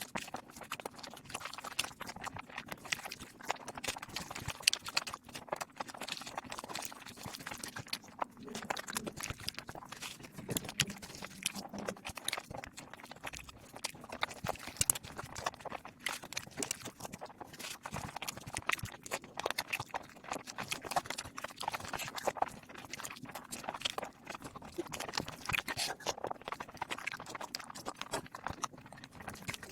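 Eating sounds of wet soaked rice (panta bhat) played at high speed: a dense, rapid run of mouth smacks, chewing and wet clicks with no pauses.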